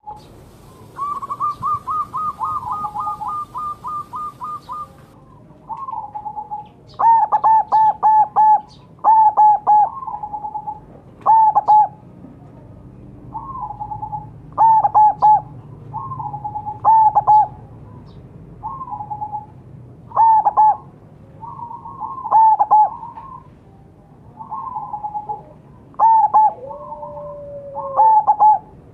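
Zebra dove (perkutut, local Majapahit type) cooing. A fast run of soft notes comes first, then from about seven seconds in, loud phrases of a few quick staccato coos repeat every couple of seconds, with quieter cooing in between.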